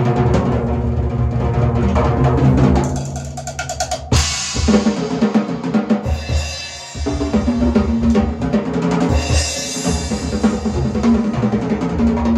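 Large acoustic drum kit being played: bass drum, snare and toms in a busy pattern, with a cymbal crash about four seconds in and another cymbal wash around nine seconds.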